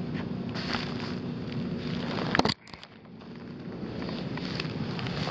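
Steady hum and air noise of a running HVAC system, with scattered small clicks and rustling from handling near the air filter. A sharp click comes about halfway, then the sound drops out suddenly and builds back up.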